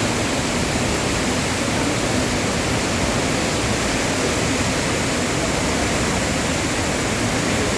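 Waterfall's falling water rushing steadily, an even, unbroken noise.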